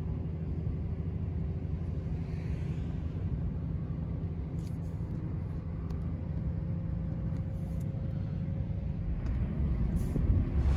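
Steady low rumble of a van driving over hard-packed beach sand on aired-down tyres, heard from inside the cabin.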